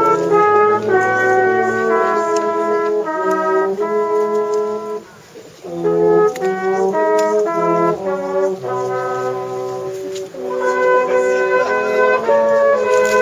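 Brass band playing in long held chords, phrase by phrase, with a short break about five seconds in.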